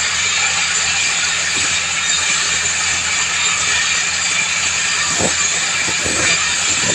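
Water-well drilling rig running: a steady machine hum under a loud, even hiss, with a few faint knocks near the end.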